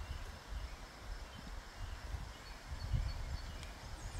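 Outdoor ambience in wooded parkland: wind buffeting the microphone in an uneven low rumble, with a few faint bird chirps.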